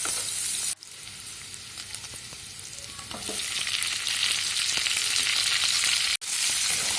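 Chopped onions and capsicum sizzling in hot vegetable oil in a pan, with a spatula stirring and scraping. The sound drops sharply under a second in, comes back up from about three seconds, and cuts out for a moment near the end.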